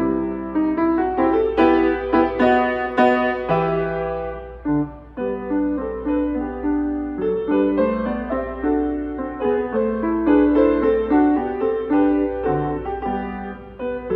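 Solo grand piano played live: a flowing passage of many notes in quick succession, with a short break about five seconds in before the playing picks up again.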